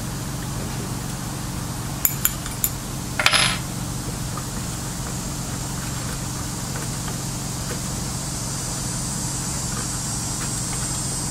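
A few light metal clicks, then a short metallic clatter about three seconds in, as the bolt and clamp of a scooter's SCS compression are worked loose and handled, over a steady low hum.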